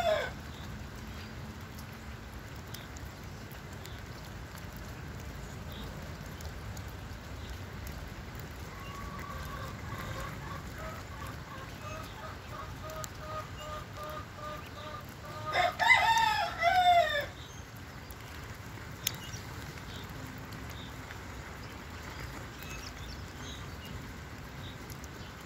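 A rooster crows once about 16 seconds in, a call of about a second and a half. Steady low background noise runs throughout.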